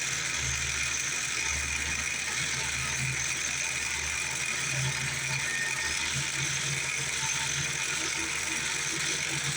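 Small homemade metal lathe driven by an old AC sewing machine motor, running steadily at part speed on an AC voltage speed controller.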